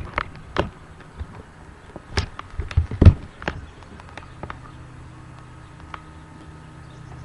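Irregular knocks and bumps of the webcam being handled and swung around, the loudest about three seconds in, then a steady low hum.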